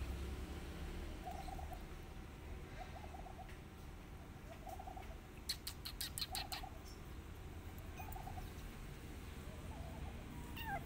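A bird calling over and over, a short low warbling call repeated about every one and a half to two seconds, with a quick run of sharp high clicks or chirps a little past the middle.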